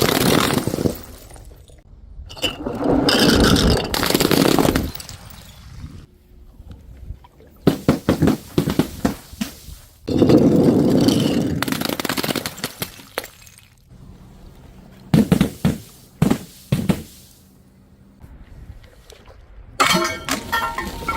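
Glass breaking and crunching in a series of loud bursts, with clusters of sharp crackles between them and tinkling, ringing shards near the end.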